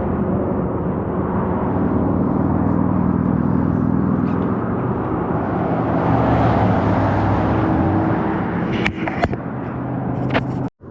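Motor vehicle engine running with steady road noise, its pitch holding low and even. A few sharp clicks come near the end, and the sound cuts out abruptly just before it ends.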